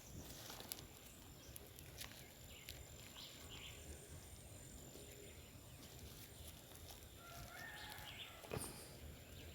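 Faint outdoor background with a few soft bird calls and one light knock near the end.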